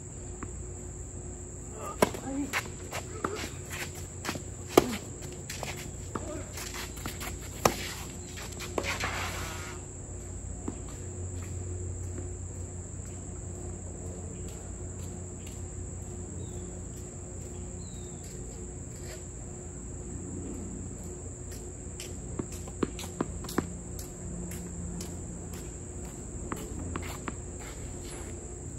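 Insects droning steadily in a constant high-pitched band, with sharp knocks of tennis racket strings striking the ball during a rally in the first eight seconds, a brief scraping around 9 s, and a few lighter ball knocks a little after 20 s.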